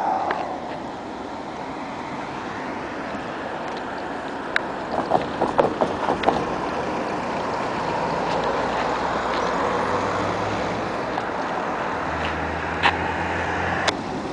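Road traffic: a steady rush of passing cars, with a low engine hum coming in about two-thirds through and again near the end. A cluster of short clicks and knocks sounds about five seconds in, and two sharp clicks near the end.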